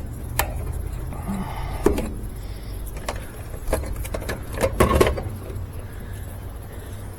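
Scattered clicks and short metallic rattles of hands fitting a replacement motor capacitor and its wire connectors, the busiest cluster about five seconds in, over a steady low hum.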